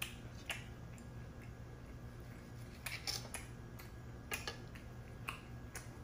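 Steel fork and knife clicking and scraping against a ceramic plate while pieces of steak are cut and picked up: a handful of short sharp clicks, bunched about three seconds in, over a low steady hum.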